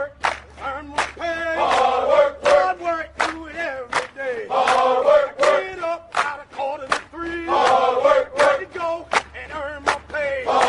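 Background music: a chanted, sung vocal line over a steady drum beat and bass.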